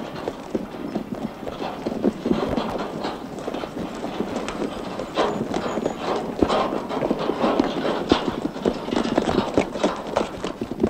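Horses' hoofbeats on snowy ground: a quick, irregular run of knocks as several horses trot round a horse walker.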